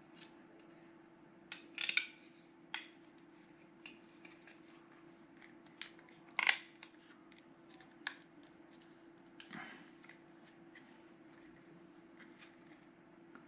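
Small hard parts being handled: scattered clicks and clacks, two of them sharper and louder, over a steady hum.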